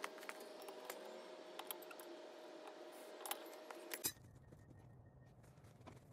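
Faint, scattered metallic clinks and jingling of loose hand tools over a steady background hum.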